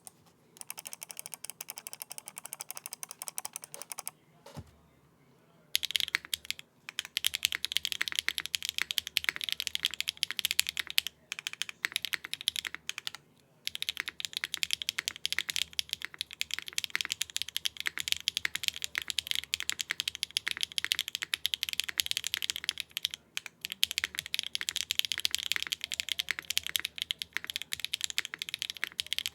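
Fast typing on a mechanical keyboard, a TKD Cycle7 with HMX Sunset Gleam switches in an aluminium plate and no foam inside, giving a dense stream of keystrokes. The typing is lighter for the first few seconds, stops briefly, then runs fast and continuous from about six seconds in, with a few short breaks.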